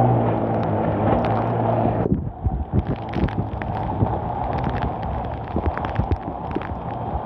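Heavy rain and running floodwater on a flooded street, with wind on the microphone and many irregular sharp crackles. For about the first two seconds a vehicle engine runs with a steady low hum, which cuts off suddenly.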